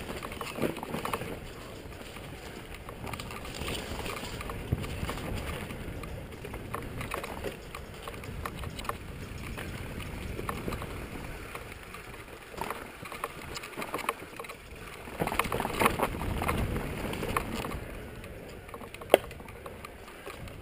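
Mountain bike riding down a rough dirt forest trail: steady tyre rumble with the frame and parts rattling and knocking over bumps, louder for a couple of seconds late on, and one sharp knock near the end.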